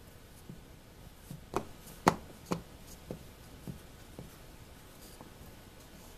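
A small wooden block knocking and pressing on an MDF board, pushing rubber screen-door gasket down into its routed groove. It gives about six short knocks at roughly two a second, the loudest about two seconds in, then the knocks die away, leaving faint rubbing of hands.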